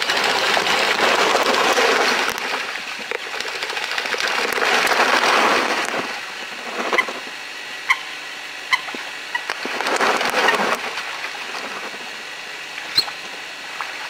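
Eurasian coots splashing and pattering across the water in a territorial chase, with a second splashing run a little after halfway. In between and near the end come several short, sharp coot calls.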